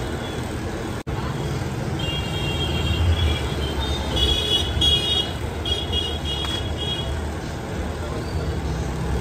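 Busy street traffic rumbling, with vehicle horns honking in short toots several times. The sound cuts out for an instant about a second in.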